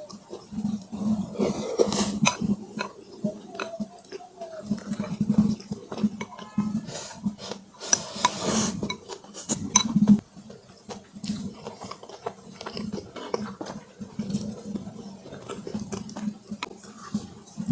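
A person eating braised pork close to the microphone: repeated chewing and mouth sounds, with clicks and clinks of cutlery against a dish, the clattering loudest twice in the middle.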